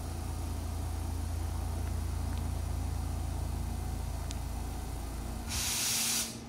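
EH200 electric freight locomotive's cooling blowers running with a steady low hum. About five and a half seconds in the hum drops away and a short, loud hiss follows for under a second.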